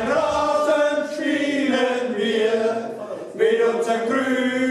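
A group of voices singing a song unaccompanied in held notes, with a brief break about three seconds in.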